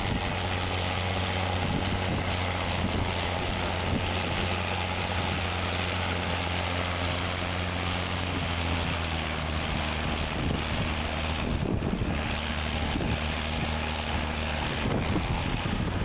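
Vintage farm tractor engine running steadily under load as it pulls a plow through the field, with wind noise on the microphone.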